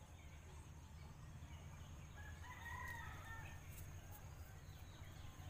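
A rooster crowing once, faint, a single call lasting under a second about two and a half seconds in, over a low steady rumble.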